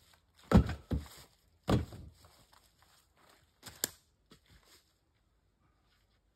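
A few heavy thuds close together, then a sharp knock about four seconds in.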